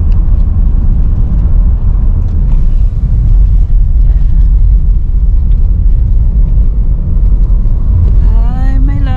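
Loud, steady low rumble throughout. About eight seconds in, a voice sounds a drawn-out note that bends up and then holds.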